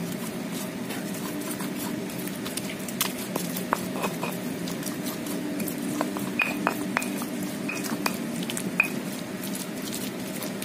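Stone pestle grinding and mashing sambal terasi (chilies and tomato) in a stone mortar: wet stirring and scraping with scattered clicks and small knocks of stone on stone, over a steady low hum.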